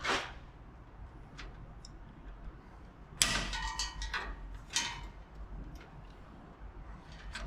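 Light clicks, ticks and rustling of hands handling plastic air-bag air line and its fittings. There are a few sharp ticks, then a busier patch of rustling and knocks about three to five seconds in.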